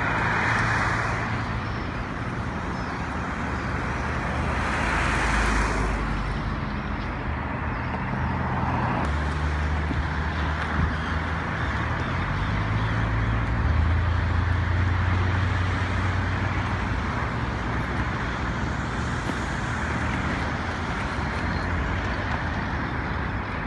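Road traffic: cars and heavier vehicles passing on a city road, with a low engine hum throughout and louder passes near the start and about five seconds in.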